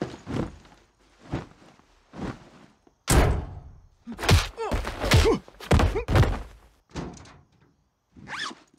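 A run of heavy thuds and slams, one after another, the loudest about three seconds in, with short vocal grunts among the middle blows and a brief cry near the end.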